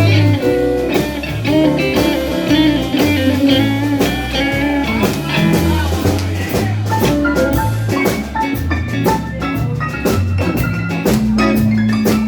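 Live blues band playing without vocals: a guitar plays lead lines with bent notes over a walking bass line and a drum kit keeping time with cymbal strokes.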